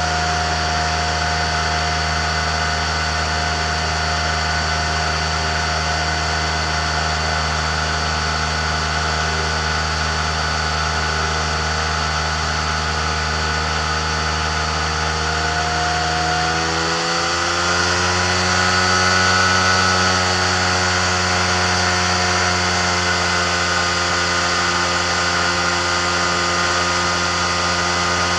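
Amphibious microlight trike's pusher engine and propeller running steadily in flight. A little over halfway through, the engine note rises as the revs climb, then holds at the higher pitch.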